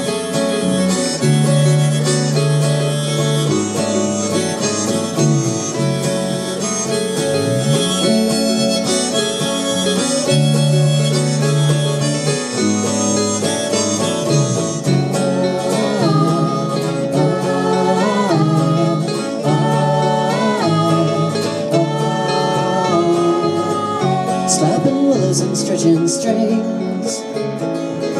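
Alternative country band playing an instrumental break live: acoustic guitar, mandolin and bass, the bass notes sliding up and down. About halfway through, a lead melody with bent, wavering notes comes in over the band.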